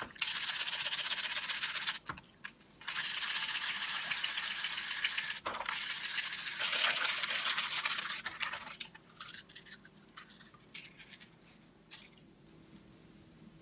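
A brush scrubbing a tool part in three long bursts of quick strokes, then a few scattered light clicks near the end.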